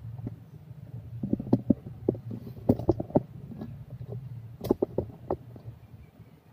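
Irregular clicks and taps in short clusters from a computer mouse and laptop being worked, over a steady low hum.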